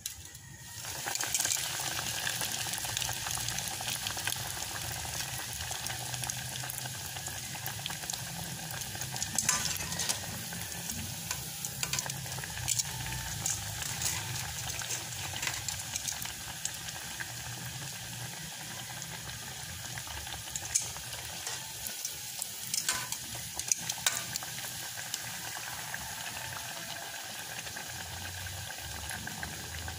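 Breadcrumb-coated tuna pie deep-frying in hot oil, a steady sizzle with scattered crackling pops. The sizzle starts loudly about a second in.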